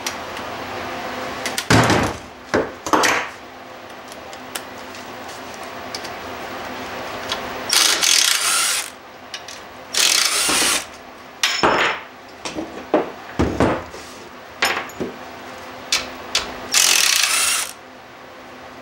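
Cordless drill-driver running in three short bursts of about a second each, backing out the valve cover screws on a lawn tractor engine. Between the bursts there are sharp knocks and clatter from handling the tool and parts.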